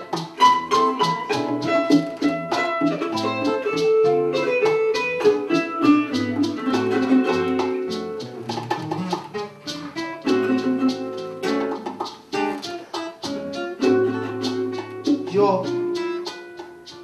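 A small Latin band playing live: a plucked-string melody of quick, sharply attacked notes on a small guitar-like instrument and guitar, over bongos and maracas keeping a steady beat.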